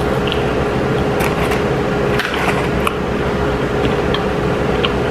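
Steady mechanical hum with one constant tone running under an even noise, and a few faint clicks.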